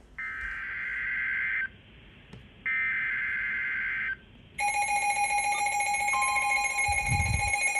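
Emergency Alert System SAME header: two screeching digital data bursts of about a second and a half each, a second apart. About four and a half seconds in, the steady two-tone EAS attention signal starts and holds as a piercing alarm tone.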